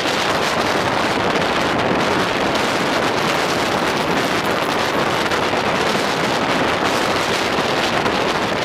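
Ground-blizzard wind blowing steadily across open snow, buffeting the microphone with a constant rushing noise.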